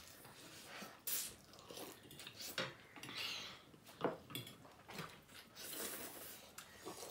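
Several people slurping and chewing ramen noodles, with chopsticks and a fork clinking against plates and a bowl in irregular, scattered strokes.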